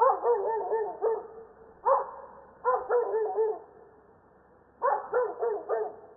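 A dog barking in quick runs of several barks, with four bouts separated by short pauses.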